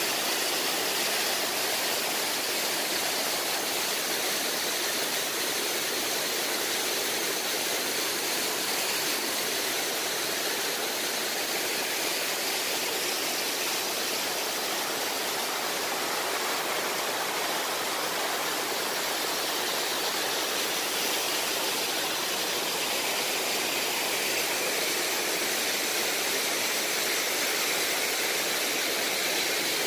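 Elephant Falls' cascade rushing over rock: a steady, unbroken rush of falling water with a hiss-like upper edge.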